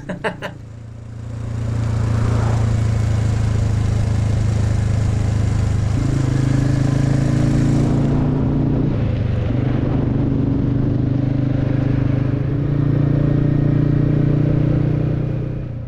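Royal Enfield motorcycle engine running steadily on the road, its pitch shifting a few times as the throttle or gear changes, over a haze of wind and road noise.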